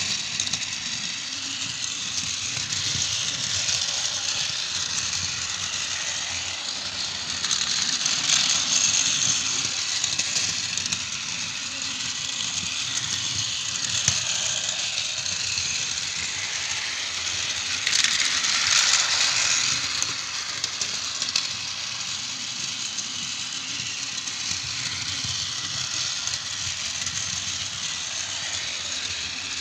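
Battery-powered Daiso petit-train Narita Express toy running on plastic track: its small motor whirs steadily and the wheels rattle along the rails, growing louder twice.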